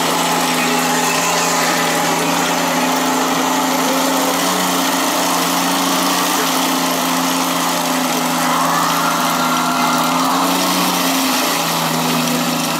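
Steady engine-idle sound from the RC Leopard 2A6 model tank's sound unit, a low even hum; a higher whine joins briefly about nine seconds in.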